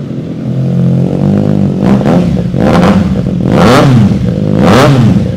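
Triumph Trident 660 inline-three engine idling through an aftermarket exhaust, then revved in several short throttle blips from about two seconds in, the last two the highest.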